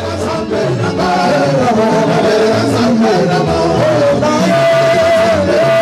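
Live gospel worship song: a male lead singer sings into a microphone over a band with bass, with backing singers. It fades up over the first second, then holds steady.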